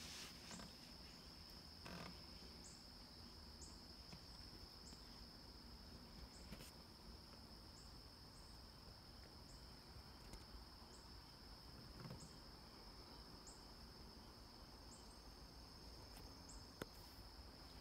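Faint outdoor insect chorus: a steady high-pitched trill, with a separate short chirp repeating roughly once a second. A few faint clicks stand out here and there.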